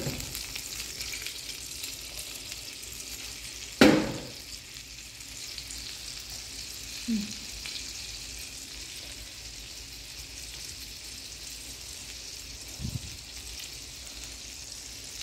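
Three steaks frying in melted butter in a pan, a steady high sizzle. A single sharp knock about four seconds in is the loudest sound, with two fainter knocks around seven and thirteen seconds.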